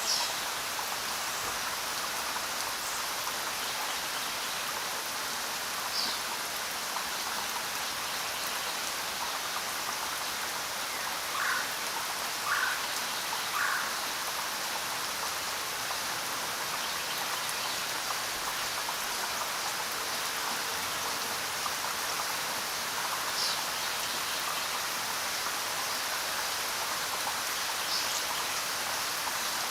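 Steady rain falling with a constant hiss. Occasional louder single drops stand out, three of them about a second apart near the middle.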